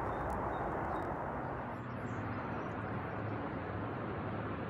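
Distant freeway traffic: a steady, even rush with a faint low hum.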